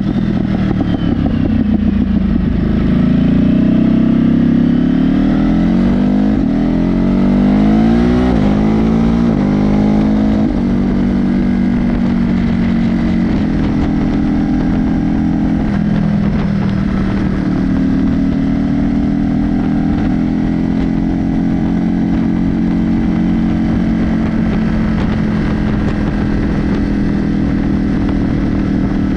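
A Ducati Monster 937's L-twin engine running through a Mivv exhaust with the dB killer removed. For the first ten seconds or so the revs climb and fall as the bike accelerates, then they hold steady while it cruises.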